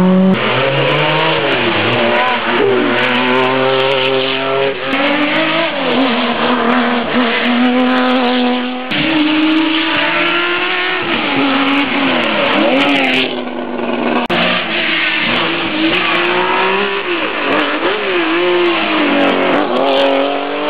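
Historic rally cars, among them air-cooled flat-six Porsche 911s, revving hard as they drive past, the engine note rising and falling with each gear change. The sound changes abruptly about nine and fourteen seconds in as one car gives way to the next.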